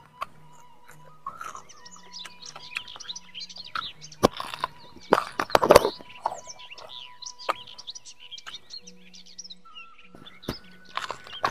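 Crunching bites and chewing of raw vegetables, loudest in a cluster about four to six seconds in and again near the end, with small birds chirping throughout.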